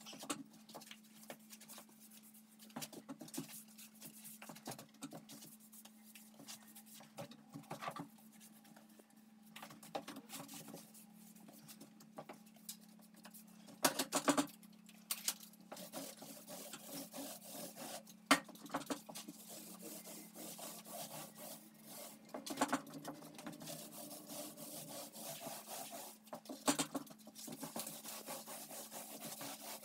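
Paint brush and then paint roller working on a ceiling: a rapid scratchy rubbing broken by many small clicks and knocks, over a steady low hum.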